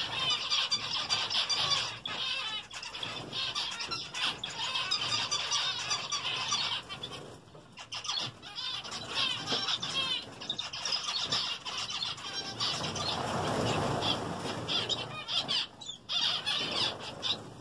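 A flock of zebra finches calling constantly with many short, nasal beeping calls, with wings fluttering among them. About thirteen seconds in, a louder whirr of many wings as most of the flock takes off.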